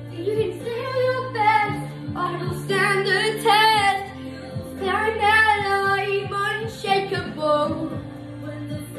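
A young girl singing a song, with backing music holding steady low notes that change every second or so underneath.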